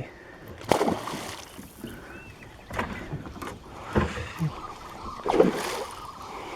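Water lapping and a few scattered knocks and splashes around a small fishing boat while a hooked fish is played toward the landing net.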